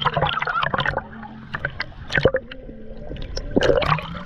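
Water splashing and bubbling around a camera dipped in and out of the water, with irregular sharp pops and gurgles. It swells louder a little before the end.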